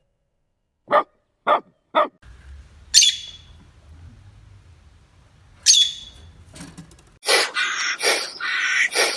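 A run of animal calls one after another: three short yelps in the first two seconds, then two sharp high-pitched calls about three seconds apart over a faint low hum, then repeated bleating starting about seven seconds in.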